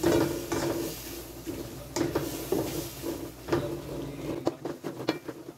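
Wooden spatula stirring green beans and ground pork in coconut milk in a nonstick wok, giving irregular scrapes and soft knocks against the pan.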